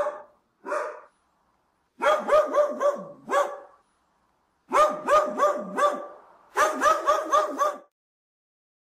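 A dog barking: two single barks, then three quick runs of about five barks each. Each bark is short and high-pitched.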